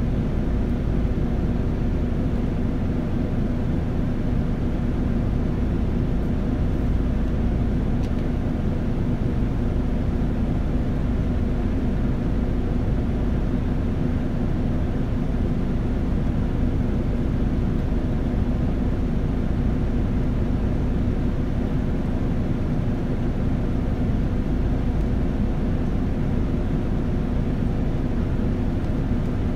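Inside a Nissan Diesel KL-UA272KAM city bus: the diesel engine and drivetrain run steadily with a constant low hum and road noise.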